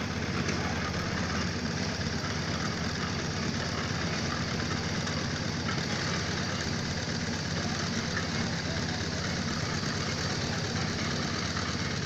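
An engine running steadily at a constant speed, with an even rapid pulse and no separate hammer blows standing out.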